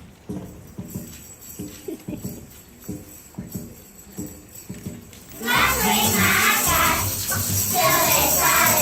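Soft, irregular taps and shuffles, then about five seconds in a song starts loudly: children singing a French song over accompaniment, with maracas and jingles shaking along.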